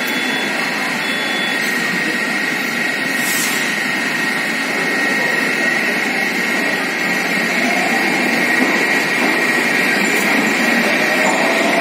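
Moscow Metro 81-760 "Oka" train at the platform: a steady hum while it stands, its doors closing, then it pulls away, with the whine of its electric traction drive rising in pitch from about eight seconds in.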